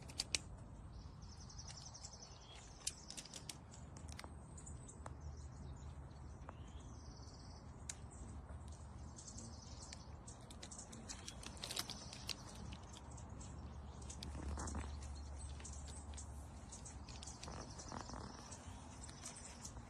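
Faint water droplets from a small solar bird-bath fountain spray pattering irregularly, with birds chirping faintly now and then.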